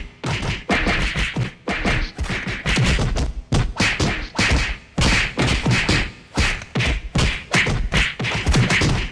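Fight sound effects: punches and body hits landing in rapid flurries of thuds and whacks, several per second, with brief pauses between the flurries.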